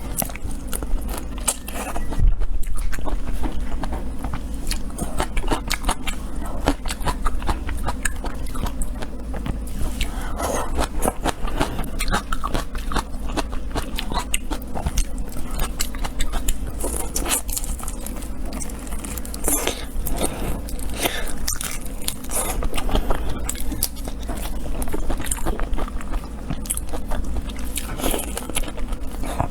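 Close-miked eating: biting, crunching and chewing food, with many small clicks and crackles over a steady low hum.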